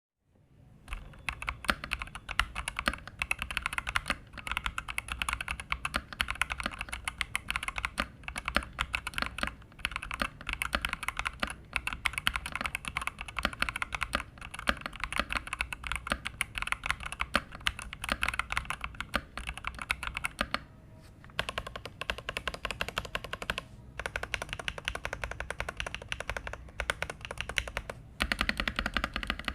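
Typing on a stock, unmodified Zifriend ZA68 mechanical keyboard with TnT Pink switches: a quick, continuous run of keystrokes, broken by a few short pauses.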